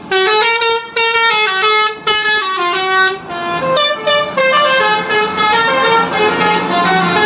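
Bus 'telolet basuri' musical horn, its multi-trumpet air horns playing a quick melody of short stepped notes. It breaks off briefly about one and two seconds in, and from about three seconds in the notes crowd and overlap over a low rumble.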